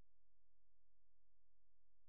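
Near silence: a faint, perfectly steady background with no handling sounds.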